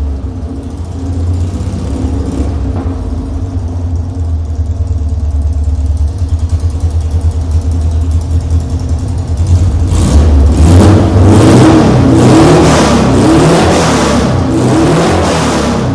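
VW Fusca (Beetle) 1300 cc air-cooled flat-four running through a Silenautto 4x2 exhaust, idling steadily, then revved in a run of quick throttle blips from about ten seconds in before settling back to idle.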